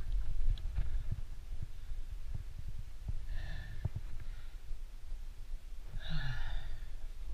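A rock climber's breathing while climbing: two short, hard exhalations, about three seconds in and again near the end, over a steady low rumble with small clicks and scuffs of hands and gear on rock.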